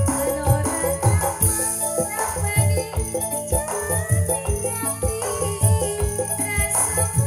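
Live campursari music from a gamelan-based band: low drum strokes about twice a second under sustained pitched melody tones, with a steady high rattling shimmer over the top.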